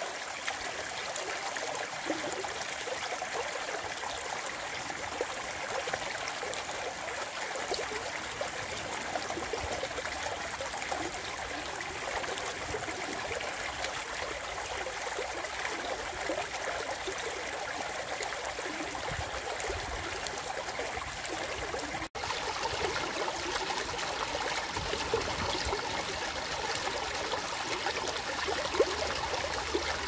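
Shallow spring meltwater stream flowing over stones with a steady rush and trickle. About two-thirds of the way through it drops out for an instant and returns a little louder.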